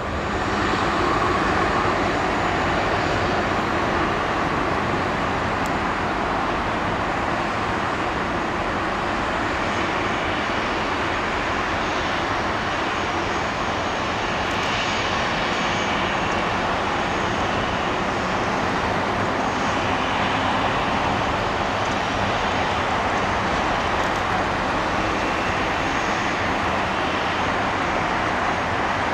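Jet engines of a Boeing 737-800 airliner running on the ground, a steady, even rush of engine noise with no change in level.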